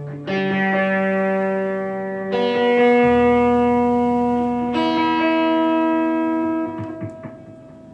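Electric guitar played through effects, striking three sustained chords about two seconds apart that ring out and then fade away near the end, with a few light clicks as they die.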